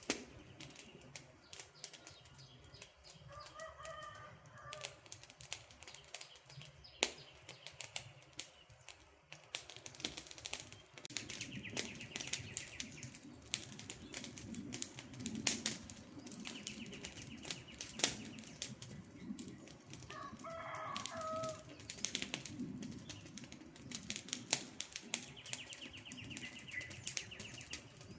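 Campfire burning with continual crackling and sharp pops of burning wood over a low rushing of flames. Birds call three times: early on, about two-thirds of the way through and at the end.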